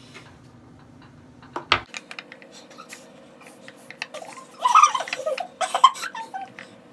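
Light clicks and clatter of makeup bottles and containers being handled on a stone bathroom countertop, with a sharper knock about two seconds in and busier handling noise past the middle.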